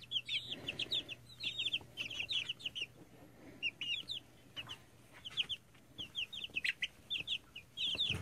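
Several two- to three-week-old chicks peeping, many short high chirps in quick runs with brief pauses between them.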